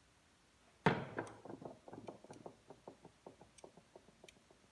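A small metal part dropped onto a hard surface: one sharp knock, then a run of fading rattling ticks, about six a second, as it rolls and settles.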